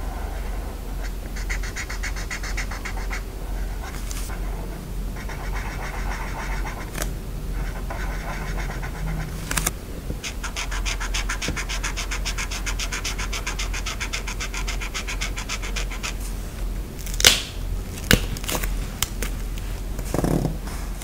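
Stickers or tape being peeled from their backing in several long, rapid, crackling pulls, with a few sharp taps and clicks near the end as pieces are pressed down.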